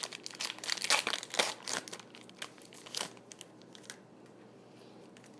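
Foil wrapper of a Pokémon trading card booster pack being torn open and crinkled by hand, a dense run of sharp crackles that thins out to quiet over the last second or so.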